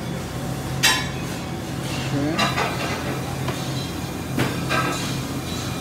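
Kitchen clatter: sharp clinks and knocks of kitchenware about a second in, midway and again later, over a steady low hum.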